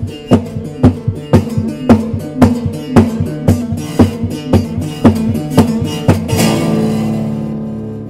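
Acoustic tenor bass tuned to a drone, strummed in a steady rhythm of about two strums a second over ringing open-string pitches, in the echo of a concrete drainage tunnel. A last strong strum a little after six seconds rings out and slowly fades.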